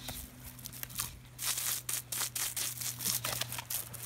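A jet of water from a garden hose spattering on the lawn and on a dog playing in it: irregular crackling spatters that come in uneven clumps, over a low steady hum.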